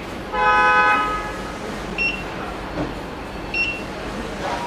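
A short horn toot lasting under a second, followed by two brief high beeps about a second and a half apart.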